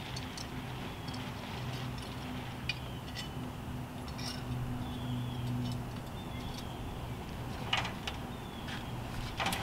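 Wind noise on the microphone over a steady low hum, with scattered light metallic clinks and a few sharper knocks near the end.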